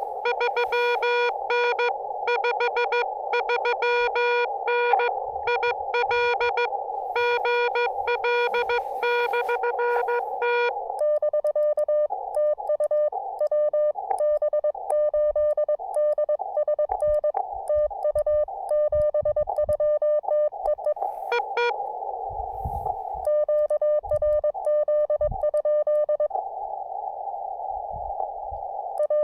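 Morse code from a ham radio transceiver: dots and dashes keyed as a steady tone over the hiss of the receiver's narrow filter. About eleven seconds in, the keying switches to a second, slightly higher and weaker tone, a different signal.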